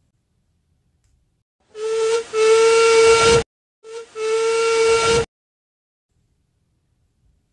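Duncan's steam whistle blowing twice, two toots of about a second and a half each. Each is one steady note over a hiss of steam and falters briefly just after it starts.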